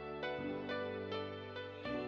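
Slow, gentle instrumental background music: a line of single notes, about two a second, over held low tones.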